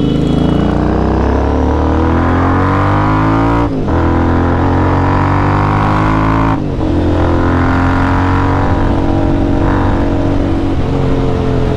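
Sport motorcycle with a full-system exhaust accelerating through the gears. The engine pitch climbs steadily, dips briefly at an upshift about four seconds in and again about seven seconds in, then climbs again.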